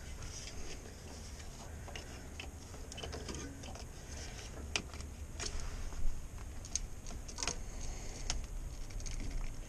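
Hand ratchet and socket clicking in short, irregular runs as a fastener is worked under the truck, with small metal clinks from the tool; one sharper knock about six seconds in.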